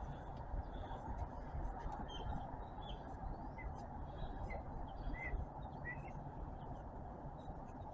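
Small birds chirping faintly now and then, short rising chirps over a steady low background noise.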